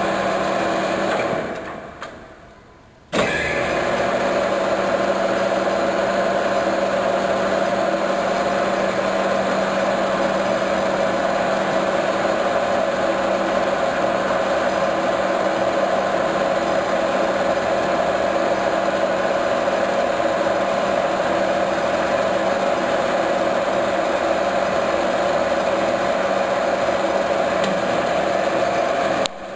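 Metal lathe running, its chuck spinning a metal bar against the cutting tool: a steady mechanical hum with several held tones. The sound fades away about a second in and cuts back in suddenly about three seconds in.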